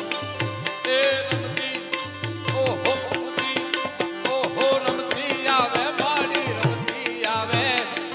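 Gujarati devotional folk music playing between sung lines. A quick, steady hand-drum beat and a repeating low note pattern run under a wavering melodic line.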